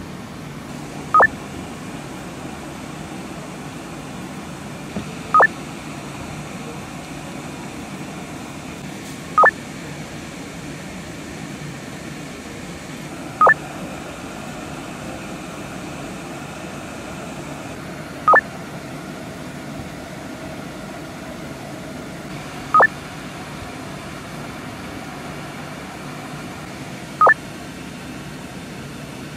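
A short electronic two-tone beep repeating evenly about every four and a half seconds, seven times in all, over a steady low background hum.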